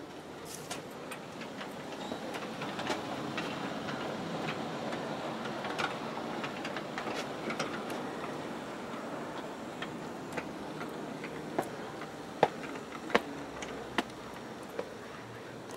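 G-scale Aristo-Craft model passenger train running on outdoor garden track behind two E9 locomotives: a steady rumble of the train on the rails, broken by repeated sharp clicks, with a few louder clicks near the end.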